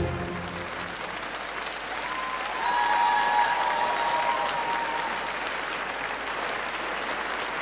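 Audience applauding as the routine's music ends. About two seconds in, a held high tone lasting a few seconds rises over the clapping.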